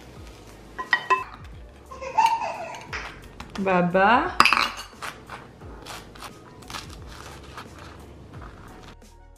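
Cutlery clinking against a dish a few times, then a spoon and knife scraping over dry toast in many quick, repeated strokes as spread goes on.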